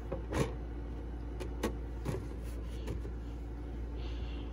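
Steady low hum with a few light clicks, typical of handling noise.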